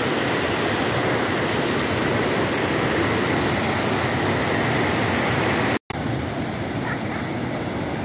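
Waterfall water rushing over rocks, a loud, steady rush. About three-quarters of the way through it cuts out for an instant and comes back a little quieter and duller.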